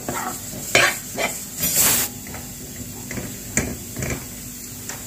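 Steel ladle scraping and clinking against a metal kadhai while stirring crumbly zunka (gram-flour pitla): a few separate scrapes, the longest and loudest about two seconds in.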